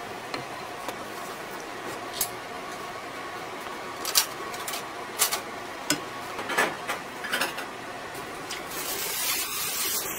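Kitchen work at a large stainless steel pot: a handful of sharp knocks and clinks of a utensil against the pot over a steady background hum. Near the end a rustling hiss builds as a plastic-wrapped load of meat goes into the pot.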